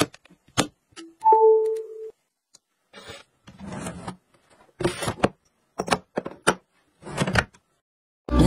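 Smart bedside table being handled: a phone set down on its glass top with a click, a short electronic chime about a second in (a brief high beep, then a lower held tone) as the wireless charging pad responds, then a drawer sliding open, followed by scattered clicks and knocks.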